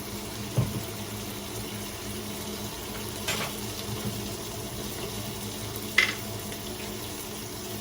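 Onion and garlic frying in olive oil in a pot, a steady sizzle, with three short clinks of a spoon against the pot, about half a second, three seconds and six seconds in.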